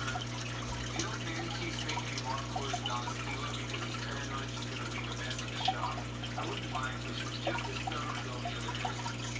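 Aquarium filter running: water trickling and dripping over a steady low hum.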